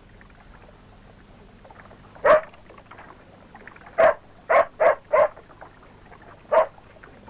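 A dog barking in short, sharp single barks: one about two seconds in, a quick run of four around the middle, and one more near the end.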